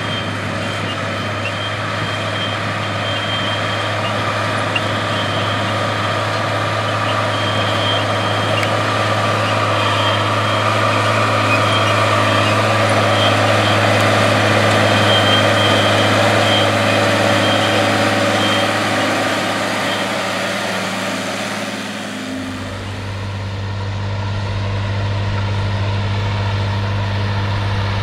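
International 1566 tractor's turbocharged six-cylinder diesel running steadily under load while pulling a disk harrow, a steady low drone under a rougher mid-range noise. About three-quarters of the way in the sound shifts: the higher noise falls away and the low drone grows stronger.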